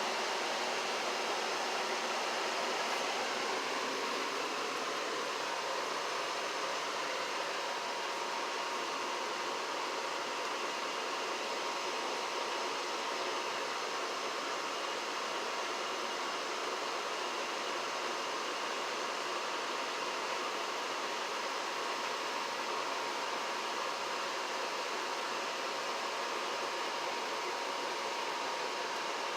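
Janitrol furnace running steadily: an even rush of moving air with a faint steady whine.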